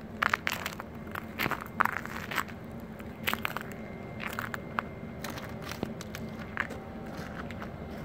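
Footsteps crunching on a snowy, icy platform: quick irregular crunches for the first few seconds, then fewer. Under them runs a steady low hum from the standing electric train.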